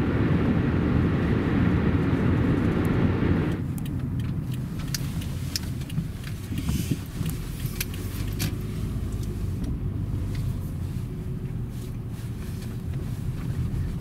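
Car driving: loud tyre and wind rush for the first few seconds, cutting off abruptly to a quieter low rumble heard from inside the car, with scattered light clicks.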